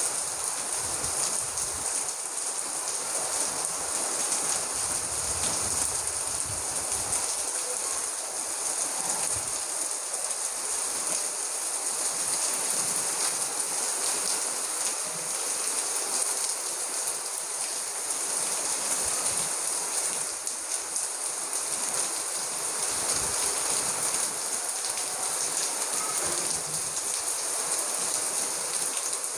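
Heavy rain pouring down steadily: a dense, even hiss of rain with fine pattering of drops on surfaces.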